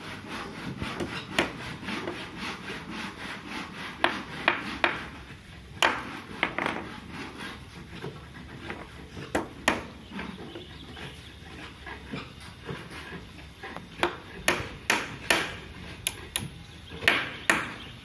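Claw hammer tapping nails into the wooden joints of a cage frame: sharp taps in bursts, a quick run of them near the end, with scraping and knocking of the wood between.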